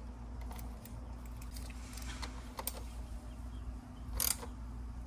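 Light, irregular clicks and taps of a hand tool and fingers on the engine's plastic coil area as the ignition coil's hold-down bolt is fastened, with one louder rattle about four seconds in, over a steady low hum.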